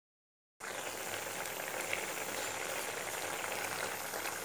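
A thick mustard-green stem curry bubbling steadily at a boil in a wok, a steady crackle that starts suddenly about half a second in.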